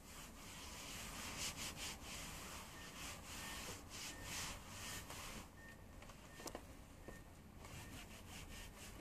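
A tissue wiping over the plastic casing of a PS3 Super Slim in repeated dry rubbing strokes, with one small click about six and a half seconds in.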